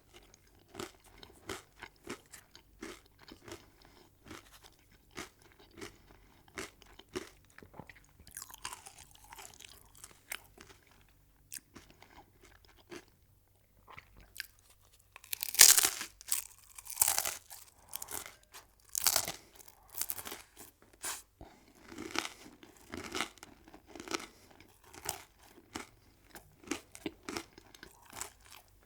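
A person eating crunchy food: rhythmic chewing, a pause of a couple of seconds about halfway through, then loud crunching bites followed by more crunchy chewing.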